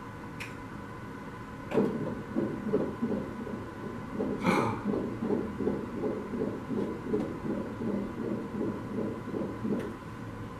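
Fetal heartbeat from the ultrasound machine's Doppler: a fast, even pulse that starts about two seconds in and stops shortly before the end, with one sharp click about four and a half seconds in.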